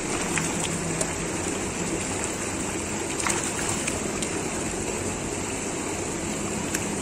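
Steady rush of pond water with small splashes and ticks as a crowd of ornamental carp churn the surface at the pond's edge.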